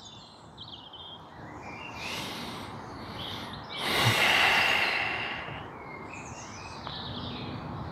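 A person's long, heavy exhale about four seconds in, while holding a yoga bridge pose, with a softer breath about two seconds in. Birds chirp in the background.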